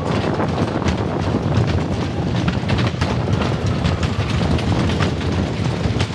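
Wooden roller coaster train rumbling and clattering along its track at speed, with frequent sharp clacks over a steady low rumble and wind buffeting the microphone.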